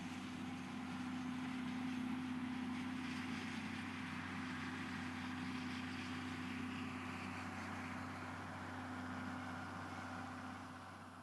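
A vehicle engine running steadily, a low even drone with a faint rushing noise over it, fading out near the end.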